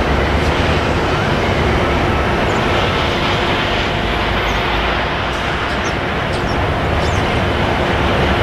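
A train rolling past close by: a loud, steady rumble of wheels and cars on the rails, with faint short high squeaks.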